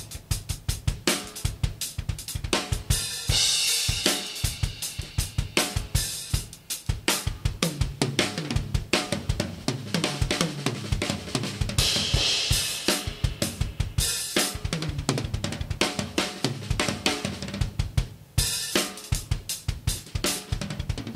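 Kyre Iris Series ash-shell drum kit (22x17" bass drum, 10" and 12" rack toms, 16" floor tom, 14x6.5" snare) played as a groove with fills, bass drum, snare and hi-hat going steadily. Cymbal crashes about three and twelve seconds in, and a brief break just after eighteen seconds before the playing comes back in with a hit.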